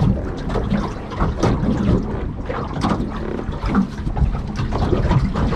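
Water slapping and lapping against the hull of a small aluminium boat, with wind buffeting the microphone in an uneven low rumble.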